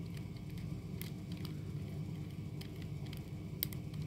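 Faint, scattered small clicks of a Phillips screwdriver turning in the battery-cover screw of a Lego Mario figure, over a steady low hum.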